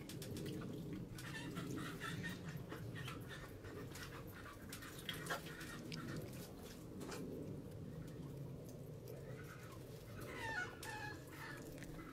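Chickens clucking a few times, a cluster of calls near the end, over a steady low hum.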